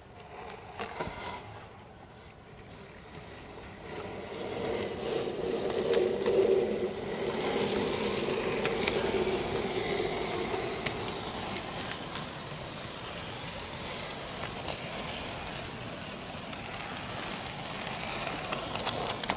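N gauge model train running along its track, heard from a camera riding on the train: a steady rattling running noise with scattered sharp clicks, getting louder about four seconds in.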